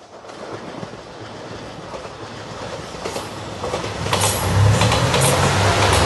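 JR Shikoku 2700 series diesel multiple unit approaching and passing close by, growing steadily louder. Wheels click over rail joints, and the low drone of its diesel engines comes in strongly about four seconds in.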